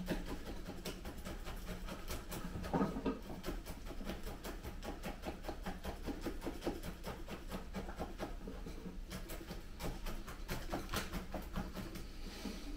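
Dense, irregular scratching and crackling of soil and tangled roots as the root ball of a potted Lawson cypress is worked loose for repotting.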